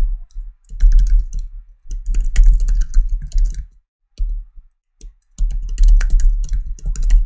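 Typing on a computer keyboard: runs of quick key clicks broken by short pauses.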